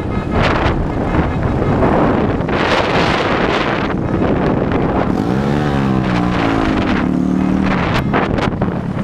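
Heavy wind buffeting on a microphone moving with a car at road speed, over road and engine noise. About five seconds in, a nearby motorcycle engine's pitch rises and wavers, then holds steady for about a second.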